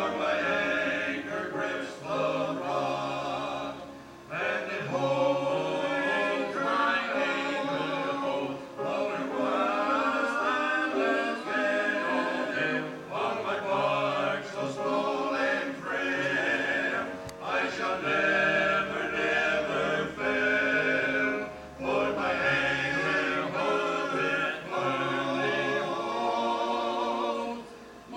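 A choir singing a sacred song in phrases of a few seconds, with short breaks between phrases.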